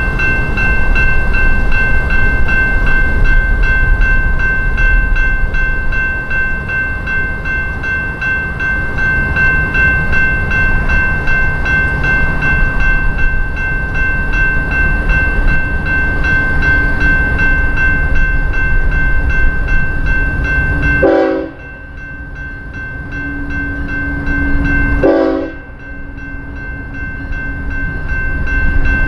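A freight locomotive's air horn holds one long, unbroken chord over the loud rumble of a passing train. About 21 seconds in, the sound drops off abruptly, then jumps and drops twice more, leaving a lower single tone.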